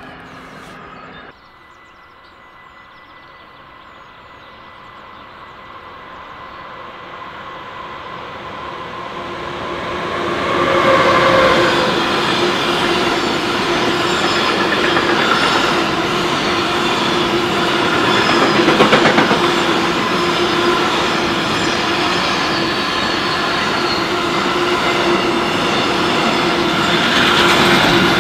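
A train approaching and growing steadily louder for about ten seconds, then running past close by with continuous wheel-on-rail noise and a steady tone underneath.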